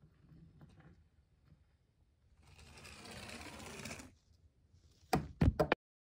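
Small motor of a homemade toy car whirring as it drives across a wooden floor, growing louder as it nears and stopping abruptly about four seconds in. A few sharp knocks follow near the end.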